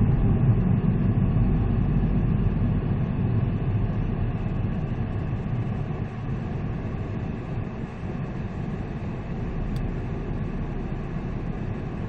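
Peugeot 207 CC's engine and road noise heard from inside the cabin while driving, a steady low rumble that gets quieter after about five seconds as the car slows.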